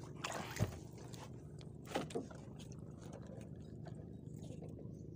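A few sharp knocks and clicks from handling fishing tackle in a small boat, then a steady low hum.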